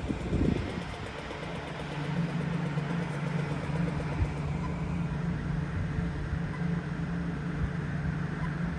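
A steady low mechanical hum, constant in pitch, over outdoor city noise.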